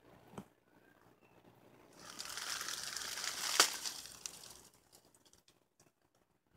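Leaves and twigs rustling and crunching close to the microphone for a couple of seconds, with one sharp crack in the middle of it.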